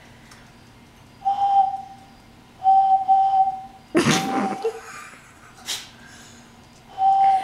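A beer bottle blown across its mouth like a whistle, sounding four steady hooting notes all at the same pitch, each lasting half a second to a second. About four seconds in, a loud sudden burst with a falling pitch breaks in over one of the notes.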